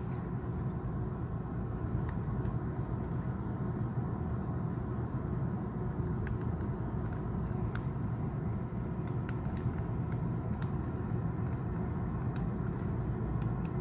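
Steady low rumble of background noise, with a handful of faint small clicks scattered through it as the display's flex cable connectors are pressed onto the iPhone 6S logic board.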